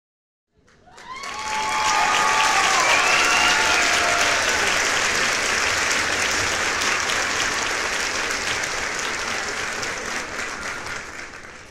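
A crowd clapping, fading in over the first second and tapering off at the end, with a few voices calling out over the clapping in the first few seconds.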